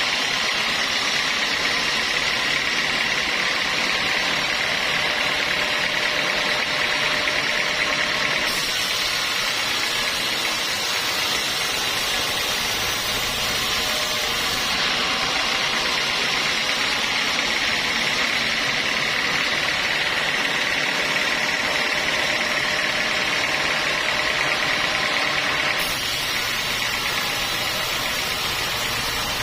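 Sawmill saw running steadily: a continuous machine drone with a hissing whine. It drops slightly in level near the end.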